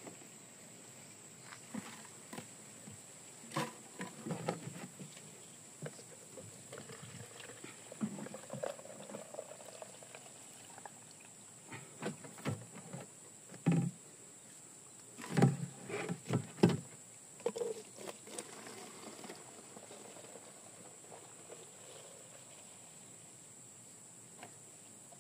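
Plastic jerrycan, jug, funnel and bottles knocking and clunking as they are handled while palm wine is poured between them, the loudest knocks in a cluster a little past the middle. A steady high-pitched insect trill sounds behind.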